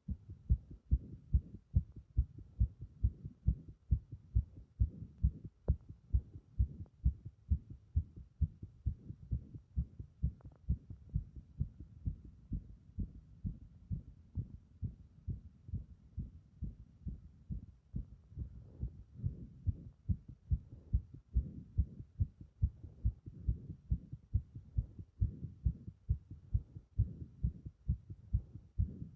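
Fast, strong heartbeat: regular low thumps repeating at a quick, even pace.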